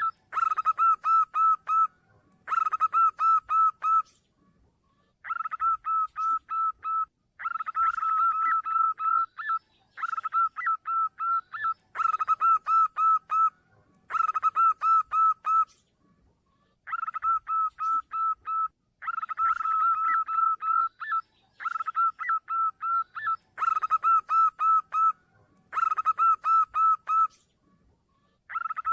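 Zebra dove (perkutut) cooing, played as a lure call: phrases of rapid pulsed cooing notes, each about two seconds long, repeated over and over with short pauses between them.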